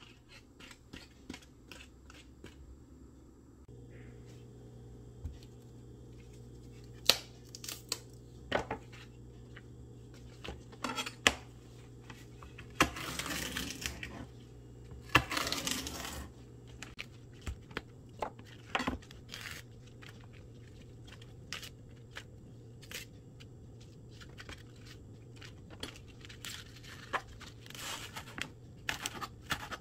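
Scattered clicks and knocks of vegetables being set down and handled, then a kitchen knife cutting along a kale leaf's stem with two long rustling, tearing strokes about halfway through. Near the end, the knife chops the kale on a plastic cutting board in a run of quick taps, while a low steady hum runs through the first half.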